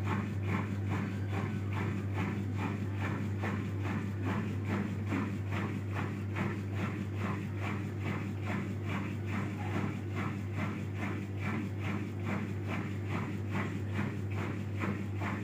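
Sharp automatic washing machine running its spin-dry cycle: a steady low hum with a regular beat about three times a second. The machine now stands level and spins without aborting.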